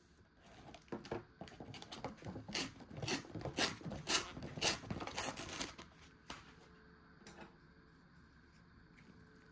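Food packaging crinkling and rustling as it is handled: a dense run of crackles lasting about five seconds, then a few single clicks.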